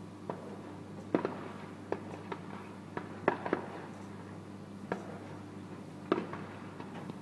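Distant fireworks display: about a dozen sharp, irregular bangs of bursting shells, some coming in quick pairs, over a steady low hum.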